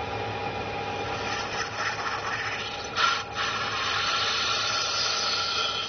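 Lathe spindle running with a steady whine as the turning tool cuts a rubber part frozen with liquid nitrogen. A hissing cutting noise builds from about a second and a half in, with a sharp crack around three seconds, then holds steady.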